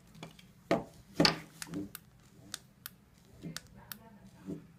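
Knocks and clicks of a remote dog training collar's receiver and its handheld transmitter being handled on a table, with two sharper knocks about a second in followed by a series of light clicks from the remote's buttons and the collar.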